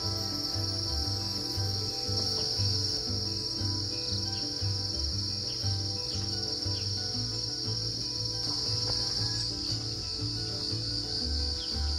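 A chorus of crickets trilling steadily, with background music that has a steady pulsing bass beat playing underneath.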